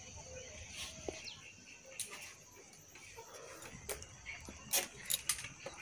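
Scattered light clicks and taps of hands handling wire and a plastic PVC pipe while tying the wire along it, loudest near the end.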